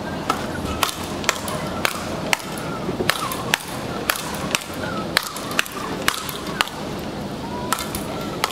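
Speedball rally: a ball on a tether to a central pole struck back and forth with solid rackets, sharp cracks at about two a second, with one longer gap between hits about seven seconds in.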